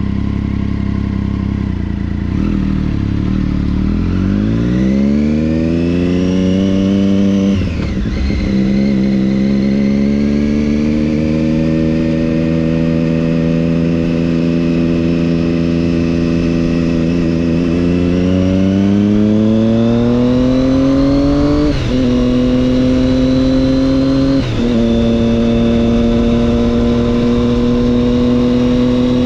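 Triumph Daytona 675's inline three-cylinder engine through an Arrow exhaust, pulling hard with its pitch rising, then upshifting with a sharp drop about a quarter of the way in. It climbs again through the middle, takes two quick upshifts near the end, and settles into a steady cruise.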